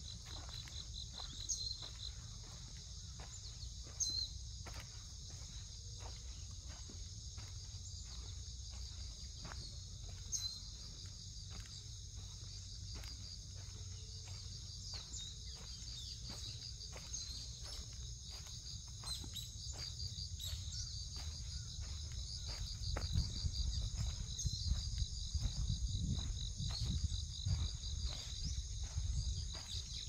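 A steady, high chorus of insects chirring with a fine pulsing rhythm, over footsteps crunching on dry leaf litter about once a second. A low rumble grows louder in the last third.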